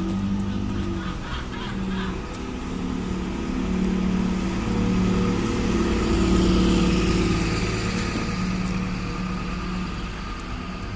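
A double-decker bus's engine running as it drives past close by. It swells to its loudest about six seconds in as the bus passes, then fades as the bus moves off.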